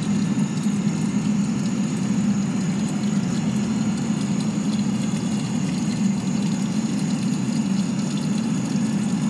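Steady, low droning rumble with no melody or beat, an ambient drone layer of an electronic soundscape score.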